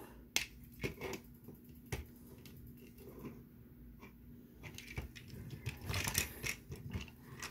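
Plastic Transformers Army Drone figure being handled and folded into robot mode: scattered light clicks of plastic parts snapping and rubbing into place.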